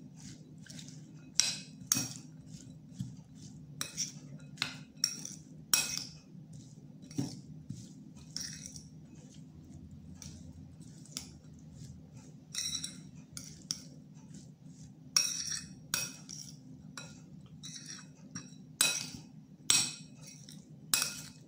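Metal spoon stirring chopped raw vegetables in a glass mixing bowl, clinking and scraping against the glass at irregular intervals, over a faint steady hum.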